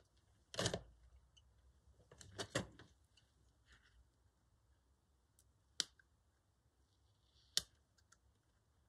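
Quiet handling of paper stickers on a journal page: a couple of short rustles in the first three seconds, then two sharp clicks about two seconds apart.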